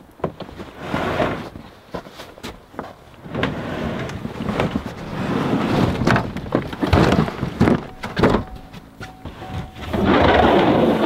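Plastic ice-fishing sled and gear being handled and slid out of a pickup truck bed over the tailgate: irregular scraping, rustling and thunks. A louder scuffle near the end as a person clambers into the truck bed.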